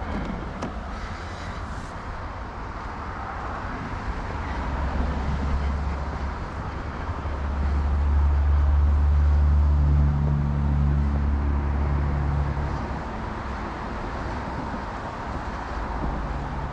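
A motor vehicle's low engine hum swells, is loudest about halfway through and fades away, over a steady rushing noise from riding a bicycle through snow.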